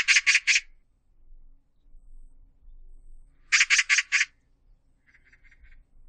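Oriental magpie chattering: a quick run of four harsh, rasping calls at the start, another run of about five a little past the middle, and a fainter, shorter run near the end.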